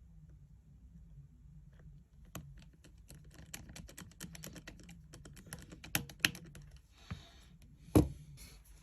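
Rapid small clicks and ticks from a precision screwdriver and tools on the phone's frame as the two bottom screws holding the iPhone screen are driven in. A few louder knocks come near the end.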